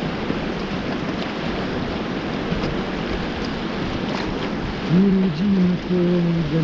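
Rushing whitewater around an inflatable raft, with wind on the microphone. About five seconds in, a person's voice comes in over the water, held and wavering in pitch.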